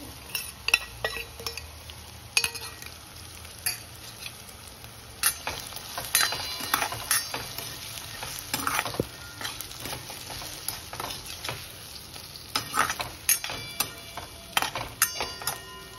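Masala-coated drumstick pods going into onion and tomato frying in oil in a metal kadhai, sizzling, while a metal spoon scrapes, taps and clinks against the pan and the bowl throughout.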